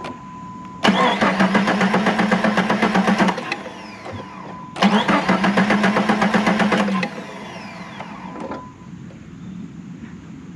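Jeep 4.0L inline-six being cranked over by its starter twice, a couple of seconds each time, without catching. A thin steady tone sounds between the attempts. The owner smells fuel but finds no spark, and thinks the freshly refitted ignition wire was not seated.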